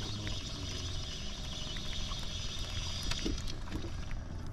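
A spinning reel being wound in against a small hooked fish on an ultralight rod, over a steady low rumble of wind and water around a small boat; a high whirring hiss stops near the end.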